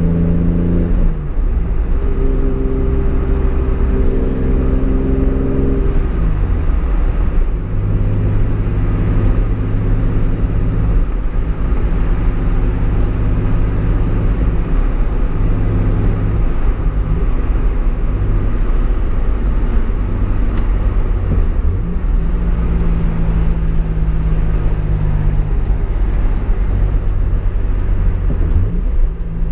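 Toyota Supra's straight-six engine heard from inside the cabin, pulling through the gears: the revs fall sharply about a second in and again about six seconds in as it shifts up, then it cruises at a steady note over road noise, with brief rev changes near the end.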